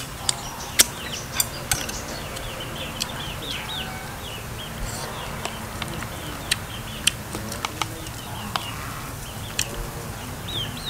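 Small birds chirping in many short, quick downward notes throughout, with scattered sharp clicks standing out above them.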